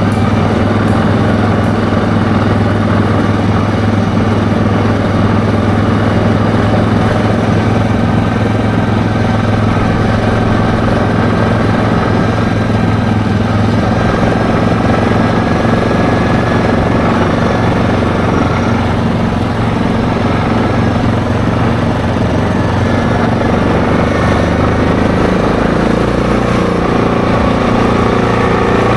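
ATV engine running steadily at cruising speed, with a constant even hum; the engine note shifts slightly near the end.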